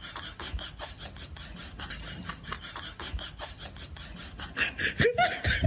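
Rapid light clicks and scuffs of a cat's paws and claws on a wooden floor and mirror as it spars with its reflection. About five seconds in, a short, louder voice sound with a rising pitch.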